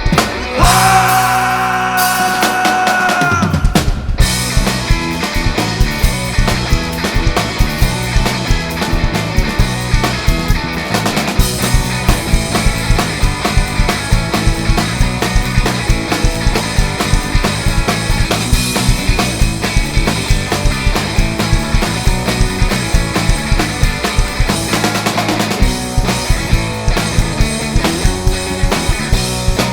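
Rock band playing an instrumental passage with no vocals. A single held note rings for about the first three and a half seconds, then drums and the full band come in with a steady driving beat.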